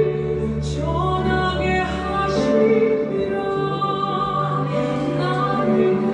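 Korean worship song playing: a sung melody with long held notes over steady instrumental accompaniment.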